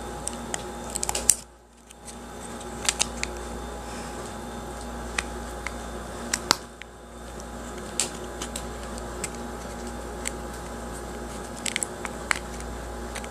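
Light, scattered clicks and taps of small objects being handled, over a steady electrical hum; the sharpest click comes about a second in, and the background hum drops away briefly twice.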